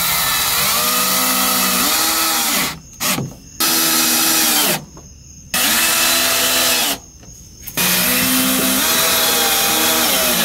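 A cordless drill runs into a plywood boat floor in four bursts of one to three seconds each, with short pauses between them. The motor's pitch climbs and sags as it works under load, driving fasteners into the new floor panel.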